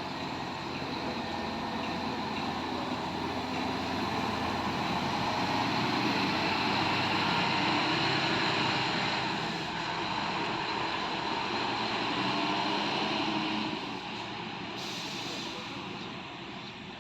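A bus driving past, its engine and tyre noise swelling to a peak around the middle and then falling away near the end.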